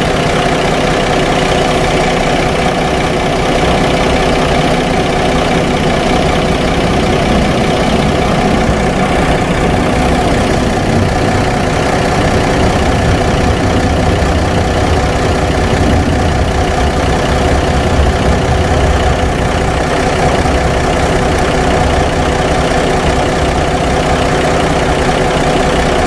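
Mercedes-Benz C300 V6 engine idling steadily, a little rough but not real rough, rougher than it should be for this engine.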